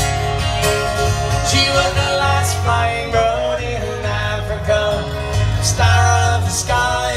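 Live music from an acoustic guitar and an electric guitar played through PA speakers, over a steady low bass line.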